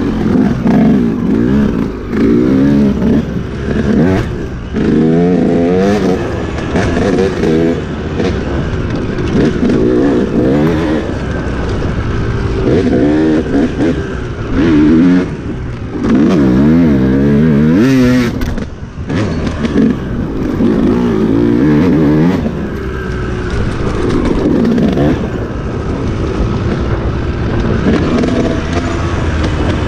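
Enduro dirt bike engine revving up and down over and over as the throttle is worked, the pitch rising and falling every second or two, with a brief drop a little past the middle.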